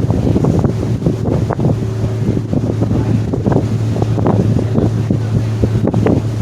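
Steady low drone of the Staten Island ferry's engines, with wind buffeting the microphone.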